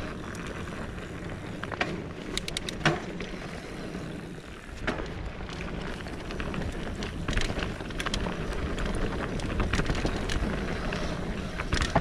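Mountain bike riding fast down a dirt singletrack: a steady rush of tyres on dirt and air past the camera, with frequent sharp clicks and clatters as the bike rattles over bumps and roots.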